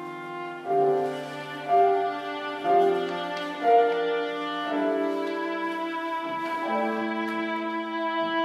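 Viola and piano playing together: the viola draws long bowed notes over the piano, with four accented note changes about a second apart, then longer held notes.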